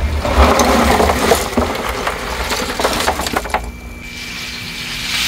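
Shells and small filter balls clattering and clinking against each other and against a plastic basin as they are tipped into a biological filter drum. The clatter stops about three and a half seconds in, leaving a faint steady hum.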